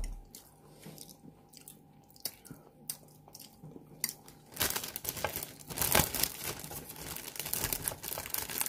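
Quiet chewing of bread with small mouth clicks, then from about four and a half seconds in a dense, crisp crackling as a hand takes and breaks a piece of the crusty toasted garlic bread.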